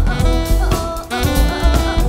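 A jazz band playing live: drum kit, double bass and keyboard under a lead melody line, over a steady groove.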